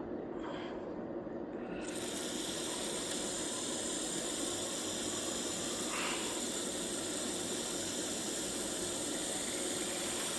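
Aerosol brake cleaner spraying steadily into the holes of a brake caliper bracket, starting about two seconds in.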